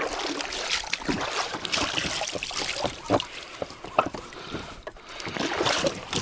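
Small boat being loaded at the water's edge: water splashing, with irregular knocks and clatter of gear against the boat.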